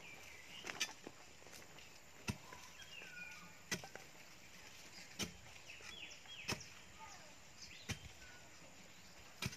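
Steel digging bar being jabbed into soil to dig a fence-post hole: short sharp thuds, about one every second and a half, seven in all.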